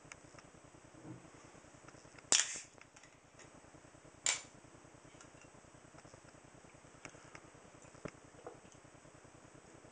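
A glass bottle of beer being opened: two sharp snaps about two seconds apart, the first with a short hiss. Then a few faint clicks and gulps as it is drunk.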